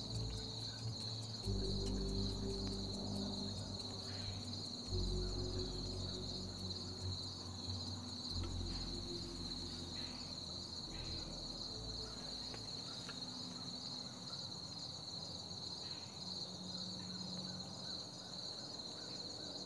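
Steady insect chorus: a continuous high, finely pulsing trill. Soft low sustained tones lie beneath it, fading out about twelve seconds in.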